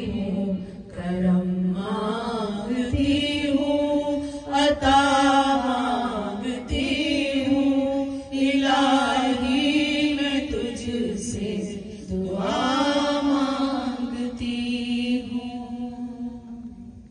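A woman's voice chanting an unaccompanied devotional recitation (naat) into a microphone, in long held, melismatic phrases; it fades away near the end.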